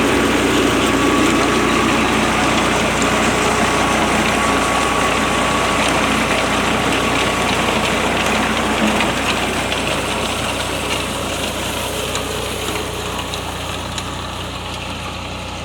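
Tractor-drawn potato harvester running, with the tractor's diesel engine working steadily under the machinery's noise. It grows gradually fainter over the second half.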